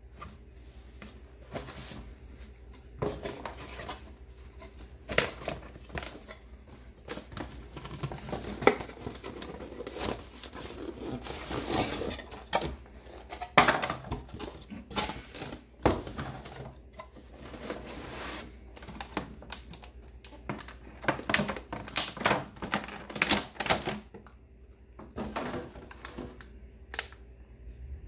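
Cardboard box and plastic packaging being handled on a tabletop: a run of irregular clicks, knocks and short rustling scrapes as flaps are folded and parts are lifted out and set down, with a denser flurry near the end.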